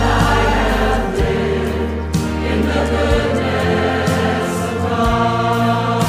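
Background music: a song with choir-like singing over sustained bass notes.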